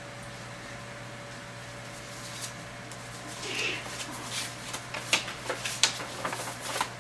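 Paper rustling and several sharp clicks and taps as a record booklet and pen are handled, starting about halfway through, over a steady low electrical hum.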